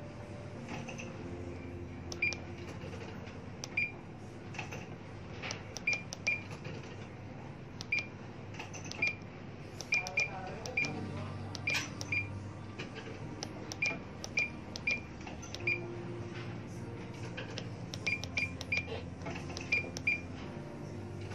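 Key beeps of a Furuno GP-32 GPS navigator: about twenty short, high electronic beeps at irregular intervals, each with a soft click, one for each press of the cursor pad as a waypoint name is entered letter by letter.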